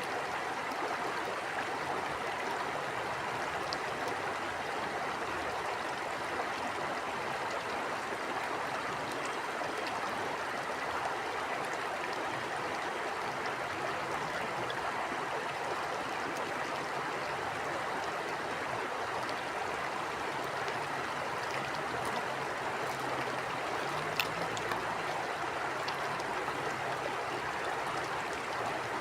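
River or stream water flowing over rocks: a steady rush with some gurgling, and a few faint ticks about three-quarters of the way through.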